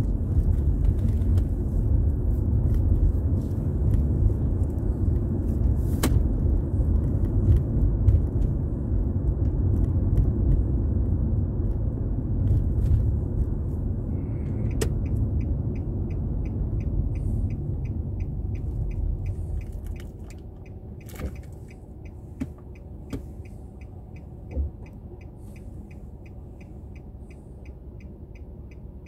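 Steady road and tyre rumble inside a moving car's cabin, which drops sharply about two-thirds of the way through. From about halfway, the car's turn-signal indicator ticks steadily.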